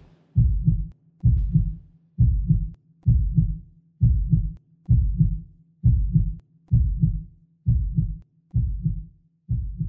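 Heartbeat sound effect: a steady double thud, lub-dub, a little under once a second, slowly getting quieter.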